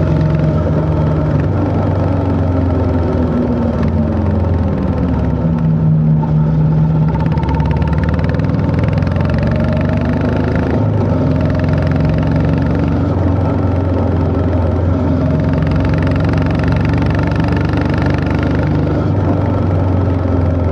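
Honda CB350 H'ness's single-cylinder engine running under way, its note falling and rising several times as the rider eases off and opens the throttle again through corners.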